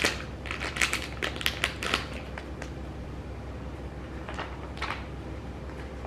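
Lip gloss samples and their packaging being handled: a quick run of crinkles and clicks over the first two seconds, then a few scattered clicks.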